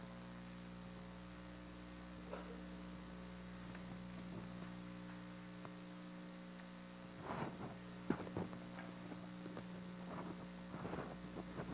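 Steady electrical mains hum in the room's sound system, with a few faint, brief noises about seven to eight seconds in and again near the end.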